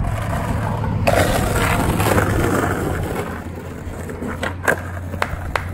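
Car engine running steadily under way, with road and wind noise swelling and easing, and a few sharp clicks near the end.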